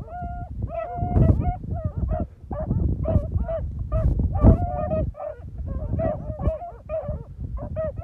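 Beagle hounds baying in quick, repeated short cries, several a second, with two or more voices overlapping at times: hounds giving tongue on a hunt, as they do when running a rabbit's scent. Wind rumbles on the microphone underneath.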